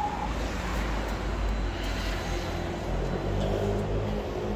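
Steady low rumble of city traffic, with a low engine hum joining about three seconds in.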